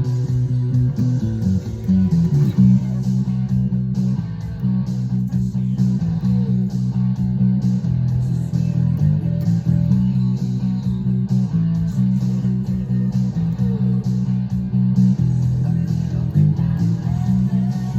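Rock music with a prominent bass guitar line playing a steady, rhythmic pattern of notes, with electric guitar alongside.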